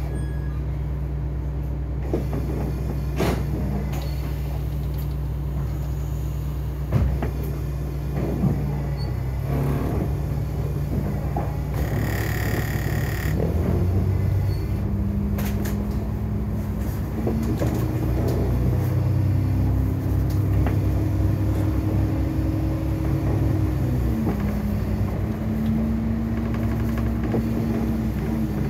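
Double-decker bus's diesel engine heard from the upper deck, running at a steady low note with a few knocks and rattles, then a short hiss of air about twelve seconds in. The engine note then rises as the bus pulls away, and drops at a gear change about three-quarters of the way through.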